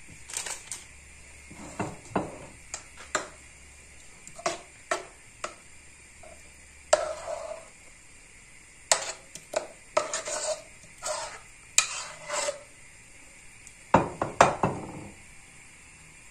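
Metal spoon clinking and scraping against a pot as thick pastry cream is scooped out: a series of sharp clicks and short scrapes, busiest in the middle and again near the end.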